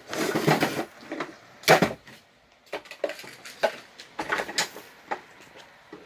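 Irregular clattering, knocking and rustling as the parts and contents of a pet mouse cage are handled and moved during cleaning. The sharpest knock comes a little under two seconds in.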